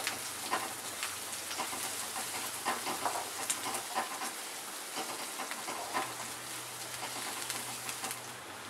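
Chopped onion, garlic and green chillies sizzling in hot oil in a kadhai, stirred with a spatula that scrapes and taps against the pan at irregular moments over a steady hiss. The onion is being fried until it turns reddish.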